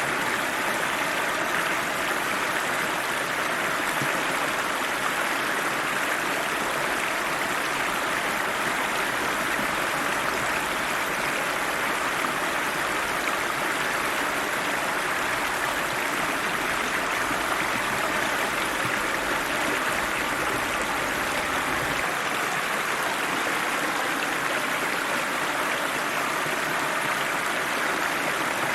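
River water rushing and splashing over rocks in a steady, unbroken flow.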